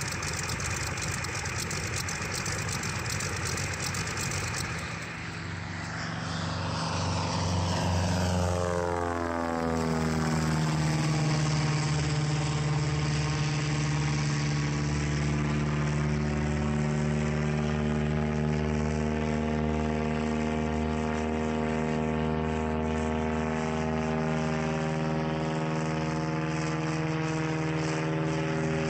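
Verner Scarlett 9S nine-cylinder radial engine running on a ground test stand, its propeller turning. About five seconds in this gives way to a light aircraft powered by a Verner 7-cylinder radial flying overhead, a steady propeller-plane drone with a slowly sweeping, phasing tone.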